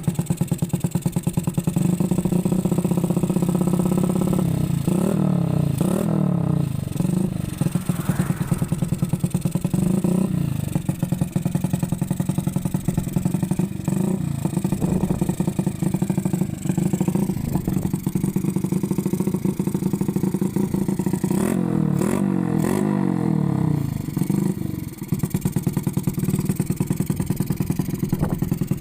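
Motorcycle engine, freshly bored up and still being broken in, idling with an even pulse while it is tuned, blipped in short revs several times in the first third and in a quick run of revs a little past the middle.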